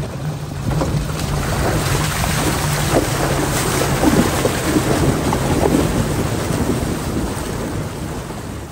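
Buggy crossing a shallow rocky creek, its wheels churning and splashing water against the body over a steady low engine hum. The splashing builds about a second in and eases toward the end.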